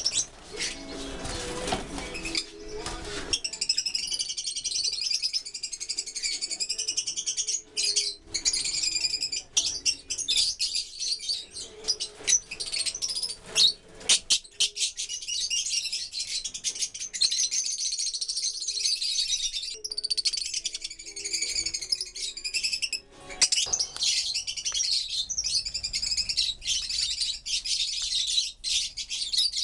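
A flock of caged Fischer's lovebirds chattering: a constant mass of overlapping shrill chirps and squeaks from many birds at once.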